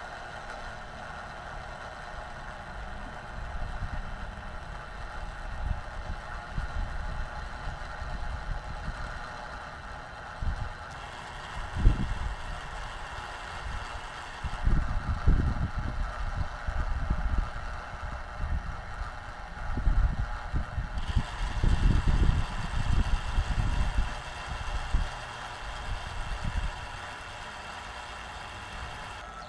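Steady whine of the heliostat's small DC gearmotors turning the mirror mount, its tone changing abruptly twice, with wind gusts buffeting the microphone.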